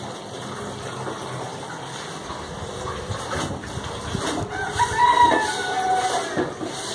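Rooster crowing once: a long call starting about four and a half seconds in, dropping lower in pitch toward its end.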